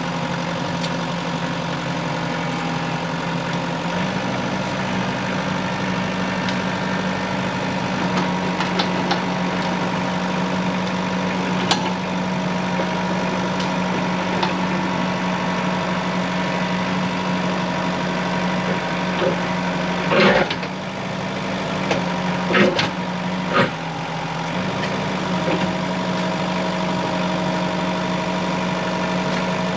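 Scat Trak 1500 Turbo skid steer's engine running steadily as it drives a hydraulic post-hole auger into the ground; the engine note steps up slightly about four seconds in. A few sharp knocks come about two-thirds of the way through.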